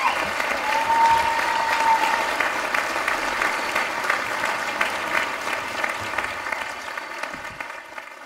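Theatre audience applauding, with a single long whistle about a second in. The applause fades out near the end.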